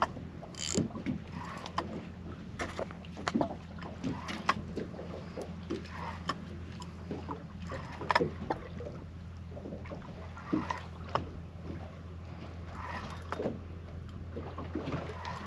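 Steady low hum on a small fishing boat, with irregular knocks and clatter of gear being handled on deck while a small shark is fought on the line.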